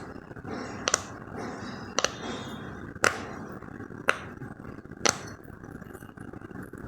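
A series of sharp pops about one a second, the first a quick double, five pops in all, stopping about five seconds in, over a steady background hiss.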